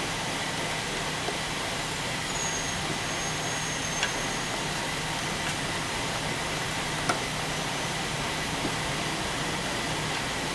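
Steady mechanical hum and noise, with a few faint clicks.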